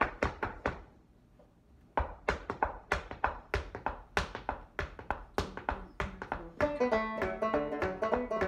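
Shoes tapping a French Canadian podorythmie foot rhythm on a wooden floorboard: a few taps, a pause of about a second, then a steady run of taps about four to five a second. About two-thirds of the way in, a tenor banjo comes in playing a reel over the foot rhythm.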